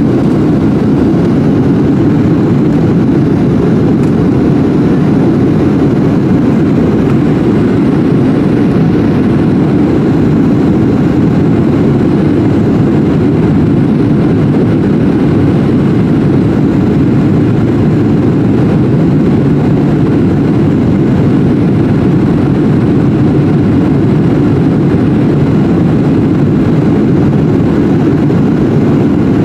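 Steady in-cabin noise of a Boeing 737-700 in flight: the CFM56 engines and rushing airflow as heard from a window seat, a deep, even rumble that does not change.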